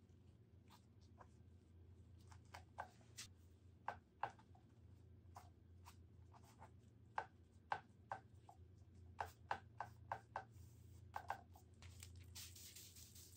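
Rice paper crinkling and rustling as it is handled on the canvas, in irregular short crackles over a faint steady low hum.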